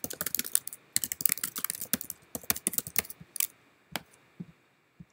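Typing on a computer keyboard: a fast run of key clicks, thinning to a few separate clicks near the end.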